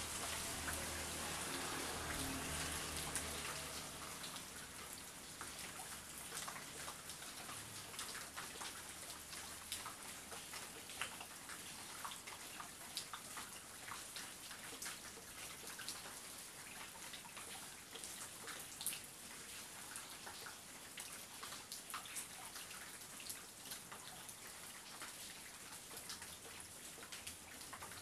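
Heavy rain on a rooftop, a steady hiss with many separate drops ticking sharply. A low rumble of thunder dies away over the first few seconds.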